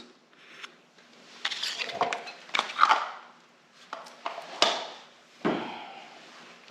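Small metal compressor parts being handled and set down on a workbench: a series of sharp clinks and knocks, with scraping and rustling between them.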